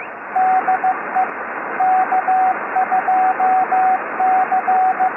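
Morse code: a single steady beeping tone keyed in dots and dashes over a loud hiss of radio static.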